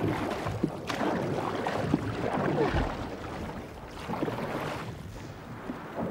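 Wooden paddles dipping and splashing in lake water as a small boat is paddled, with wind noise underneath.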